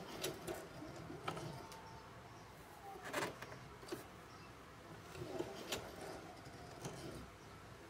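Singer 4432 Heavy Duty sewing machine worked slowly by a hand crank, stitching through a thick braided strap; its mechanism gives soft, irregularly spaced clicks and knocks, the strongest about three seconds in.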